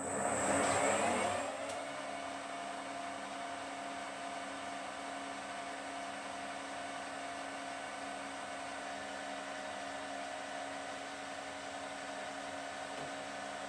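Small metal lathe starting up, its motor and drive rising in pitch over about the first two seconds as the chuck comes up to speed, then running steadily with a hum of several tones.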